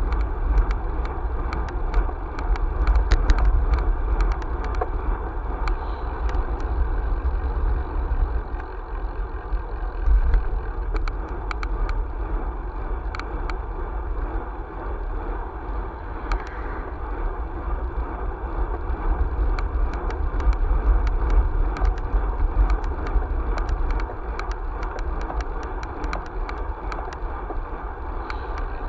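Wind buffeting the microphone of a camera riding on a moving vehicle, over a steady rumble of tyres on asphalt, with small rattling clicks scattered throughout.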